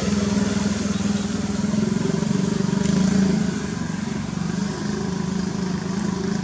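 A small engine running steadily, a little quieter after about three and a half seconds.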